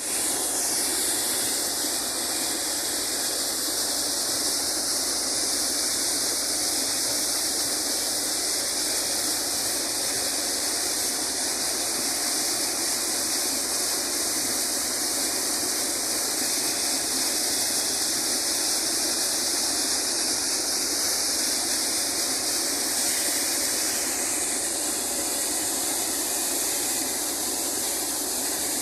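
Borewell being flushed with compressed air from an air compressor: a steady rush of air and water gushing out of the bore, with a strong hiss.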